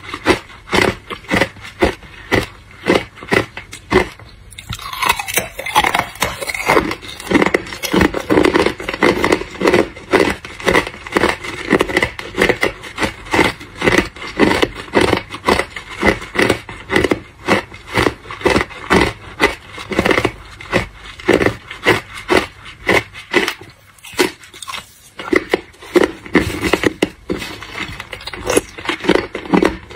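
Hard clear ice being bitten and chewed: a fast, irregular run of sharp crunches and cracks, several a second.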